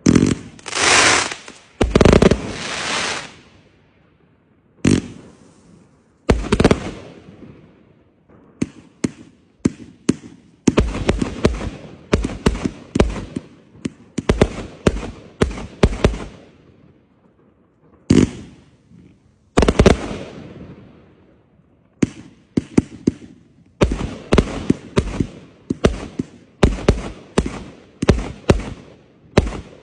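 Fireworks going off: loud bangs, some trailing a fading crackling hiss of about a second, and fast runs of sharp cracks, several a second, with short pauses between the runs.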